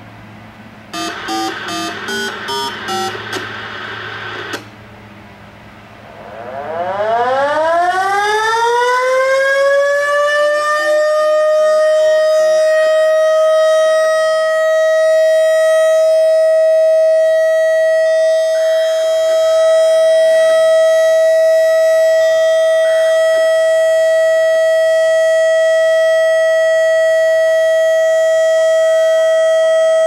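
Model L-240 outdoor tornado warning siren starting its steady alert: its pitch rises slowly for a few seconds, then holds as one loud, steady tone. Before it, about a second in, comes a quick series of beeps lasting a few seconds.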